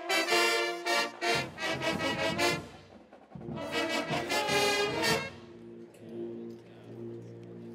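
Marching band brass section playing loud, short punchy chords in two phrases with a brief gap between them, then softer held tones near the end.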